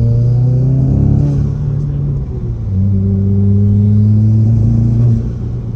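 Turbocharged car engine pulling under load on a test drive. Its pitch climbs, dips about a second in, holds steady, then drops near the end as the throttle eases. The drive checks for a misfire on cylinder one under load, which is still present but not as bad.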